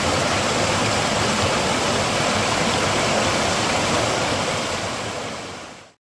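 Steady rushing of a mountain stream, fading out about five seconds in.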